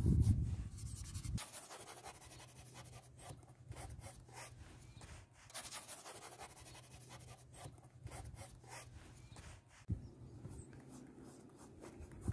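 Bristle paintbrush scratching and dabbing oil paint onto a painting panel in many short strokes. A low rumble is heard in the first second and a half, and a small knock near the end.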